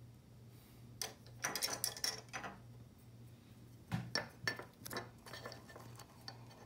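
Trading cards being slid into plastic card sleeves and handled. There are two clusters of light clicks and scrapes, about a second in and again around four seconds in, over a faint steady low hum.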